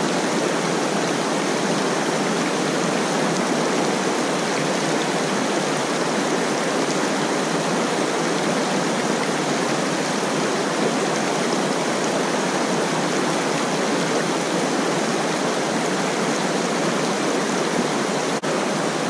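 Shallow, rocky mountain creek rushing over stones close to the microphone: a steady, even hiss of flowing water.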